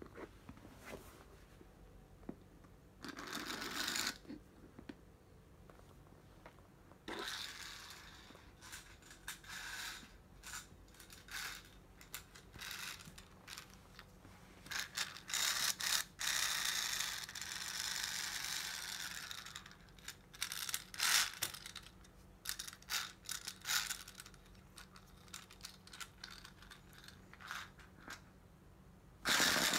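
Scattered clicks, scrapes and short rustles of small things being handled on a wooden floor. About half a second before the end a toy mouse's small motor starts with a loud, steady whirring buzz.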